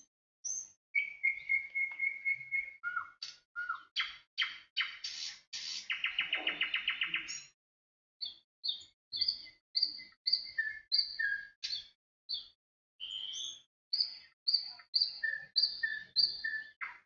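Songbird singing: a quick series of short high chirps and whistled notes, with a fast rattling trill about six seconds in. The song cuts out to silence abruptly for a moment a couple of times.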